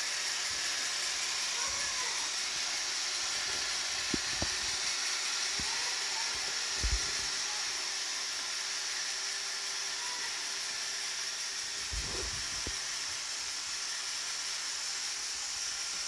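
Roomba robot vacuum running with a steady high whirring hiss, and a few soft thumps about four to seven seconds in and again around twelve seconds.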